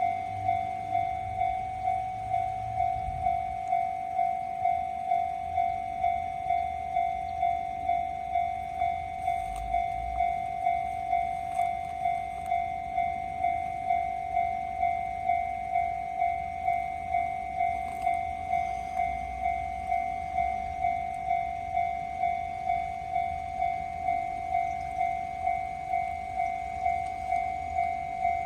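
Railway level-crossing warning bell ringing, a repeated high tone struck evenly about three times every two seconds: the crossing is closed and signalling that a train is approaching.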